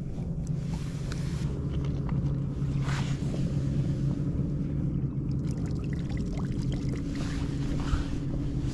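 A bass boat's motor humming steadily at a low pitch, with a few faint knocks from handling on the deck.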